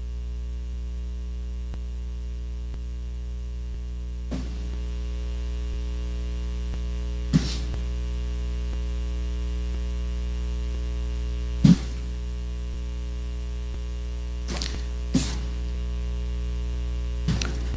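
Steady electrical mains hum on the audio feed, with about six short clicks scattered through it, the loudest about seven and twelve seconds in.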